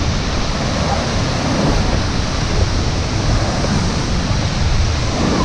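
Waterfall roaring: a steady, loud rush of falling water with no breaks.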